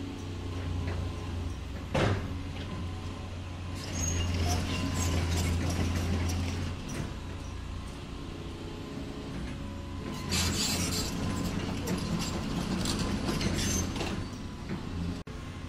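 Radio-controlled model construction machinery running: a steady low engine-style hum, with louder whirring and hissing passages about four and about ten seconds in. A sharp click about two seconds in.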